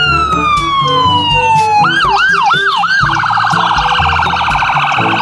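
Ambulance siren: a long wail falling steadily in pitch, then about two seconds in four quick rising-and-falling whoops, switching about three seconds in to a fast warbling yelp.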